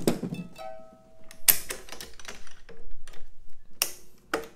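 Clicks and knocks of hands working the clamps and mounts of a racquet stringing machine around a wood racquet, with a short ringing tone about half a second in.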